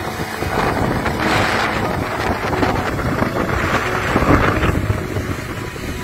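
Wind buffeting the microphone in uneven gusts, over the wash of breaking surf.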